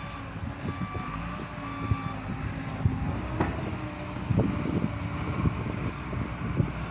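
Footsteps crunching irregularly through fresh snow over a steady low engine hum from a vehicle running somewhere on the street.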